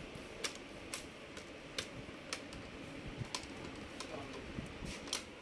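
Plastic front bezel of a Dell Latitude E6440 display being pressed onto the lid by hand, its clips snapping into place in a string of short, sharp clicks at irregular intervals.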